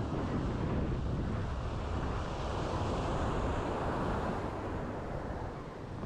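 Surf washing up the beach, swelling about halfway through and easing toward the end, with wind buffeting the microphone.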